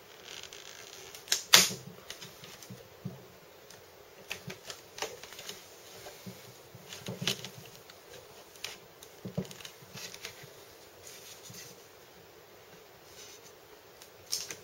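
Irregular plastic clicks and snaps as the palm rest of a Lenovo ThinkPad X200 Tablet is unclipped and lifted off the laptop's chassis, the sharpest snap about a second and a half in.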